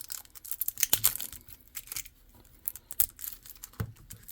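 Trading cards and their plastic wrapping being handled: a run of quick crinkles and sharp clicks, with the loudest snaps about a second in and again near three seconds.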